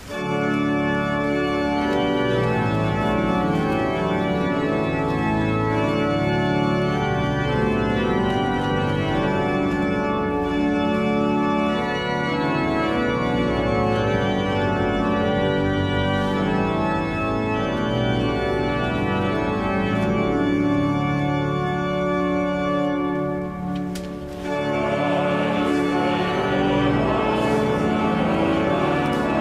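Pipe organ playing a hymn tune with full sustained chords. About 24 seconds in it breaks off briefly, and singers then come in with the organ.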